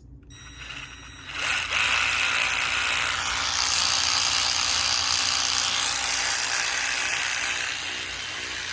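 Sealey 12V cordless 3/8 inch ratchet's motor and gearing running continuously with a steady whirring buzz, starting about a second and a half in and dropping slightly in level near the end.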